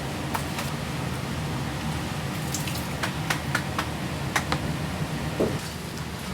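Scattered light clicks and knocks of food preparation, bunched in the middle seconds, over a steady low mechanical hum.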